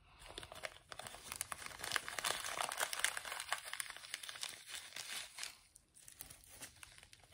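A small plastic bag crinkling and rustling as fingers pinch dry craft seaweed out of it, a dense crackle that fades near the end.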